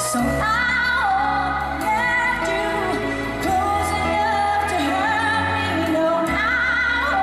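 Woman singing a pop ballad live into a microphone, her voice wavering with vibrato on held notes, over a band's backing with sustained bass notes. Her voice comes in just after the start.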